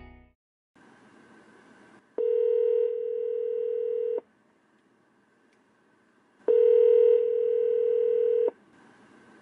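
Telephone ringback tone: two steady ringing tones, each about two seconds long and about two seconds apart, with faint line hiss between them, as an outgoing call rings before it is answered.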